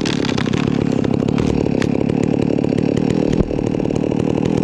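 Small petrol engine running steadily at an even speed with a fast, regular pulse, with one sharp knock about three and a half seconds in.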